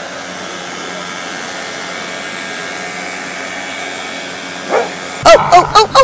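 Steady background hiss, then about five seconds in a dog barks loudly several times in quick succession.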